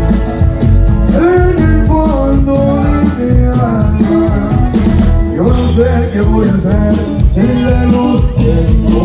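Live band playing dance music: a steady bass and drum beat under a shifting melodic lead line.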